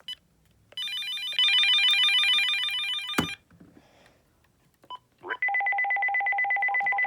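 Phones being switched on and playing electronic tones: a short melodic startup jingle lasting about two and a half seconds, ending in a click, then from about five seconds in a steady, rapidly trilling two-note ring tone.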